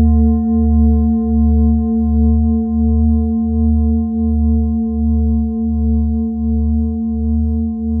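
A struck bell's long ring, several tones sounding together and fading only very slowly, with a deep hum that throbs about one and a half times a second; there is no fresh strike.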